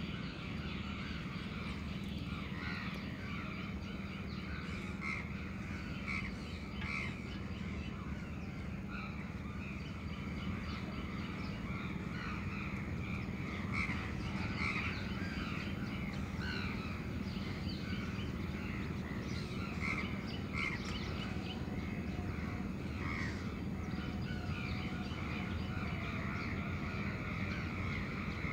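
A dense, unbroken chorus of many short animal calls over a steady low hum of the surrounding city.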